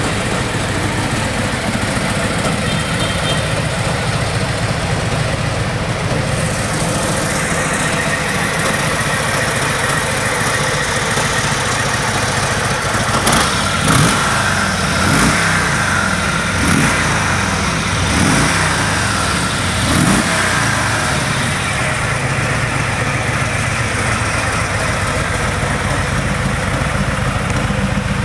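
Harley-Davidson Street Glide's V-twin idling steadily, with about five quick blips of the throttle around the middle, each rising and falling back to idle.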